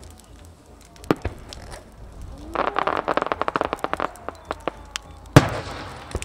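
Fireworks going off: a sharp bang about a second in, then a dense run of crackling for about a second and a half, then the loudest bang near the end, followed by a long echoing tail.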